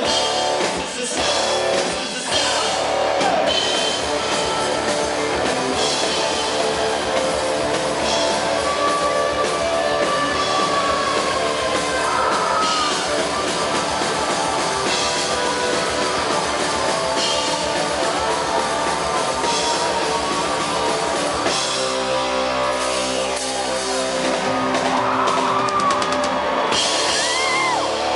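Rock band playing live through a concert PA: electric guitar, bass guitar and drum kit, with sliding pitched lines over the beat; the texture thins to held chords for a couple of seconds near the end.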